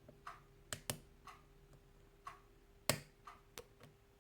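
Faint, irregular small clicks and taps of a half-diamond pick working the pin stack of a WMS five-pin euro cylinder under tension, during single-pin picking of a springy pin; one click near the three-second mark is sharper than the rest.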